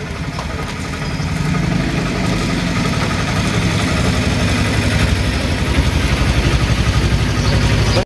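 A motor vehicle engine idling with an even, rapid pulsing, growing steadily louder.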